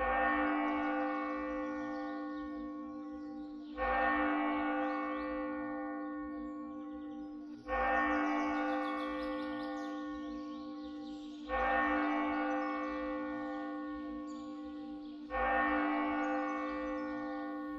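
A large bell tolling slowly: five strikes about four seconds apart, each ringing on and fading before the next.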